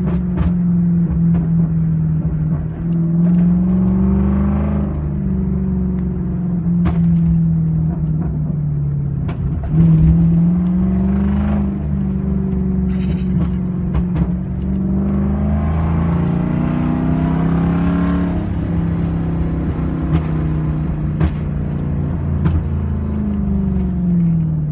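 Straight-piped Lexus LS400's V8 running loud and steady, its note rising with throttle several times and gliding down near the end, with a few sharp clicks over it.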